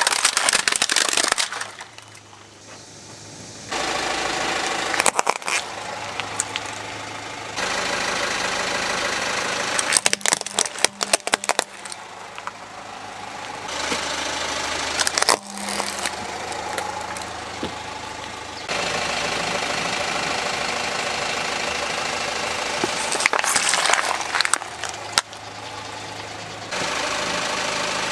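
Plastic toys being crushed under a slowly rolling car tyre, with bursts of sharp cracks and crunches a few times, over the car's engine running steadily at idle. The engine hum changes abruptly several times between separate takes.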